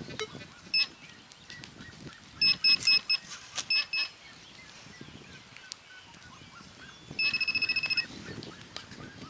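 Metal-detecting pinpointer probed in a dug hole: short high beeps, singly and in quick groups of three or four, then a fast run of beeps near the end as its tip closes on a buried metal target. Soil and roots scrape faintly as they are worked by hand.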